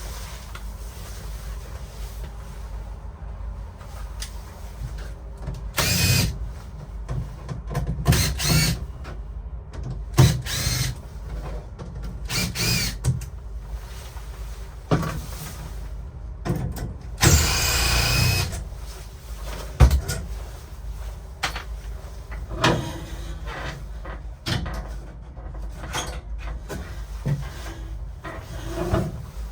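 Cordless drill-driver run in short bursts, its motor whining up and down in pitch each time, as the screws holding the cabin door's lock panels are taken out. The longest run is about a second and a half, a little past the middle. A steady low hum lies underneath.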